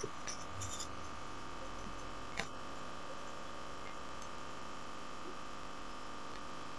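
Steady faint hiss with a thin, steady high tone, broken by a few soft clicks in the first second and once more about two and a half seconds in.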